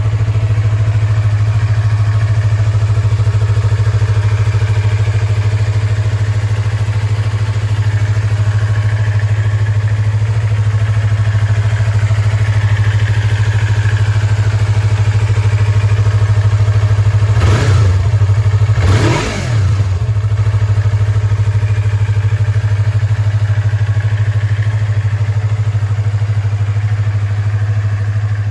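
Yamaha YZF-R25's 249 cc parallel-twin engine idling steadily. About two-thirds of the way through, the throttle is blipped twice, the revs rising and falling back quickly each time.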